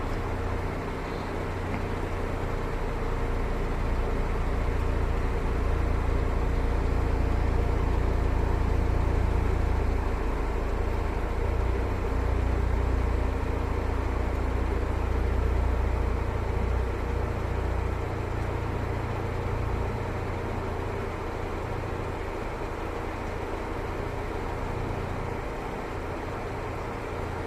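Vehicle engine running as a steady low rumble, swelling for several seconds and then easing off.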